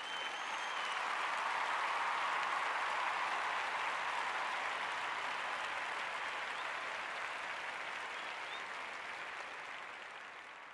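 Crowd cheering and applauding, swelling in at the start and fading out near the end.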